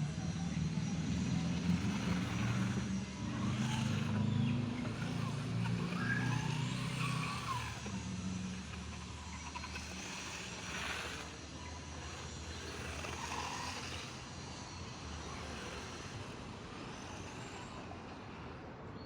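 WLtoys 124018 RC car driving: a running electric motor with short rising and falling whines under throttle, over a steady rumble that slowly fades as it moves off.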